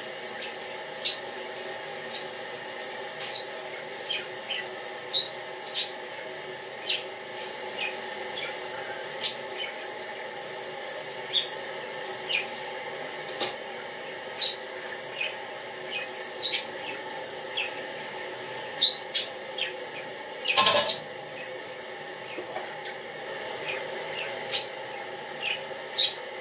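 Dishes being washed by hand at a kitchen sink, over a steady hum. Short, high-pitched squeaks or chirps come scattered every second or so, and a louder clatter comes about twenty seconds in.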